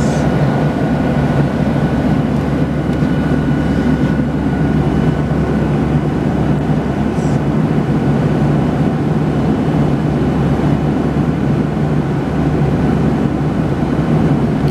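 Steady jet airliner cabin noise in flight: a constant low engine drone and rush of air, with a faint, high, steady whine over it.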